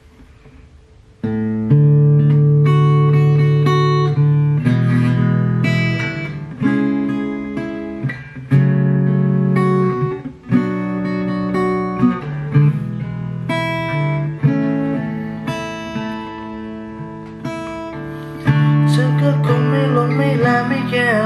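Solo acoustic guitar playing a slow song intro: chords strummed and left to ring, changing every second or two, starting about a second in.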